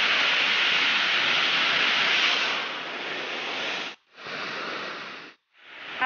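Steady rush of water from a waterfall falling into its pool, an even hiss-like noise with no distinct tones. It drops to a lower level about two and a half seconds in, then cuts out abruptly twice near the end.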